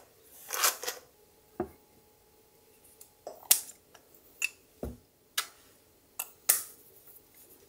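Handling of a glass dropper bottle of face ampoule: a string of small sharp clicks and taps from the dropper and cap, with two dull knocks as the bottle touches the table.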